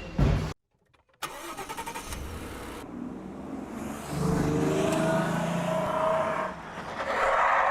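A car engine running, louder about four seconds in as it picks up speed, easing off briefly, then pulling harder again near the end.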